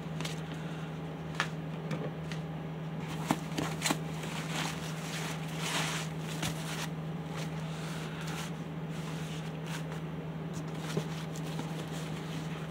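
Foam packing wrap and paper rustling and crinkling as they are handled and pulled out of a cardboard box, with a few sharp taps. A steady low hum runs underneath.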